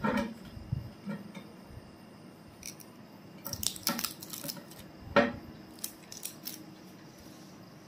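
Crinkling and clicking of a thin plastic security seal being peeled off the metal screw cap of a whisky bottle, with scattered light ticks and one sharp knock about five seconds in.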